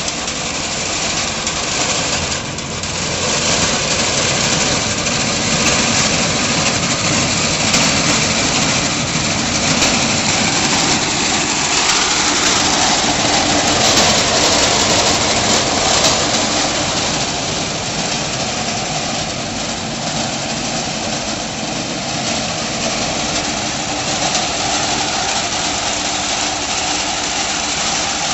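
A mini tractor's 16 HP petrol engine running steadily, a continuous mechanical drone. It grows a little louder a few seconds in and eases back after the middle.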